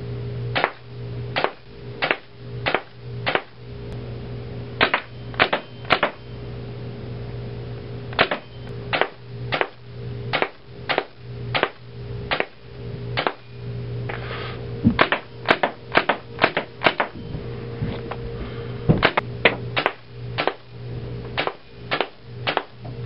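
BT Omega paintball marker firing Velcro paintballs: about thirty sharp single shots at an uneven pace, some in quick pairs, over a steady low hum.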